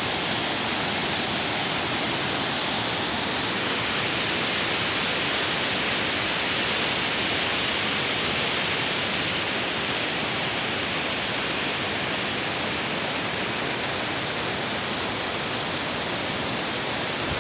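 Steady rush of water pouring over rocks and a dam spillway, its tone shifting slightly about three seconds in.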